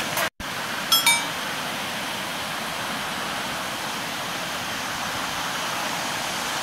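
Steady rushing of flowing river water, with a short bright chime about a second in.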